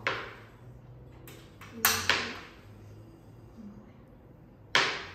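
Kitchen knife chopping through a block of glycerin soap base onto a cutting board: a sharp knock at the start, two close together about two seconds in, and one near the end.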